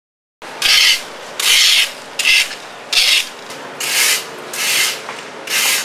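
Footsteps scuffing on sandy, gritty ground at a walking pace: seven scraping steps, about one every 0.8 seconds, starting just after a moment of silence.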